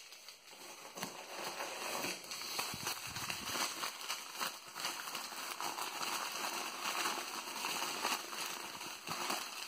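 Sheets of newspaper packing being crumpled and peeled open by hand, a continuous dry crackling rustle with many small crinkles.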